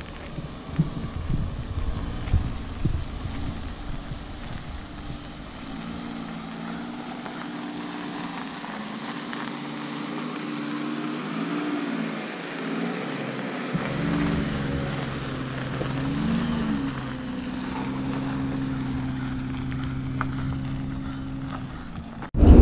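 Camper van's engine running as it drives off, a low hum whose pitch rises and falls several times, with wind rumbling on the microphone in the first few seconds and again in the second half.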